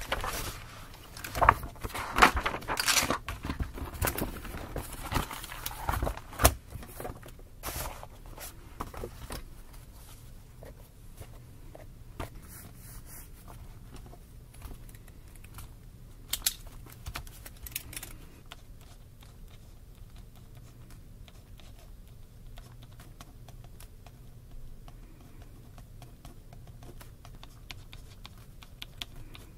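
Paper rustling and notebook handling, with a few sharp knocks over the first several seconds, as a spiral notebook is opened and a smaller notebook is laid on it. After that come the soft, faint scratches of a pen writing on paper.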